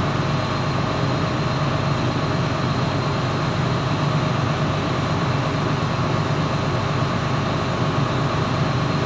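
The boat's engine running steadily: a constant low drone with faint steady higher tones above it.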